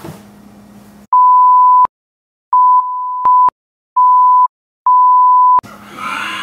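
Censor bleeps: a steady high beep tone in four short bursts, under a second each, with dead silence between them, covering the spoken words. The second bleep drops in level partway through.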